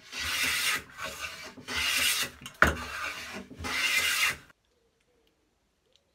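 Stanley No. 8 jointer plane (a 1907–1909 Type 10), freshly restored and sharpened, taking shavings along the edge of a board. There are about four strokes of roughly half a second each, with a sharp knock about two and a half seconds in. The sound cuts off suddenly a little after four seconds.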